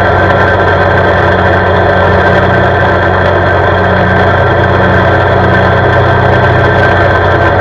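CFMoto CForce 520 ATV's single-cylinder engine running steadily while it cruises along an asphalt road, with road noise underneath.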